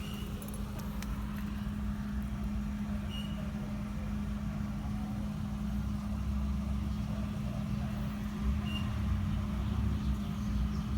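2008 Hyundai Elantra HD on the move: a steady low rumble from the road and drivetrain with a constant hum, growing gradually louder.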